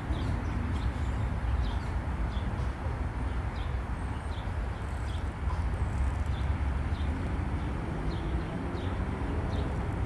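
A small bird chirping repeatedly, with short high chirps about once or twice a second, over a steady low rumble.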